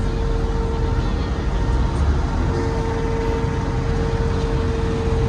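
Steady street noise of traffic on a busy boulevard, with a steady mid-pitched hum that drops out for about a second and a half about a second in.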